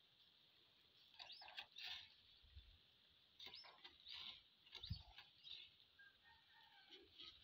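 Faint bird calls: several short, high chirps in small clusters over near silence.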